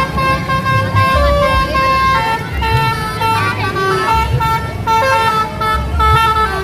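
Bus telolet horns playing a tune: held horn notes stepping from pitch to pitch in a rapid melody, over a low rumble.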